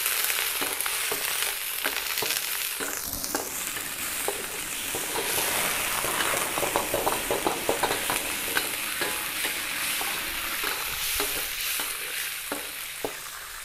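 Chicken pieces sizzling as they fry in hot oil in a metal wok, with the wok ladle scraping and clinking against the pan as they are stirred, busiest around the middle.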